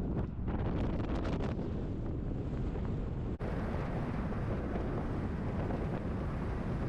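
Steady road and wind noise of a vehicle on the move, with wind buffeting the microphone. The noise changes abruptly about three and a half seconds in and becomes brighter and hissier.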